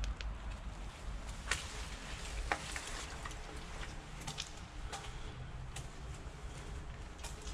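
Footsteps scuffing and splashing through shallow water on the floor of a concrete drainage pipe: irregular sharp taps and small splashes over a steady low rumble.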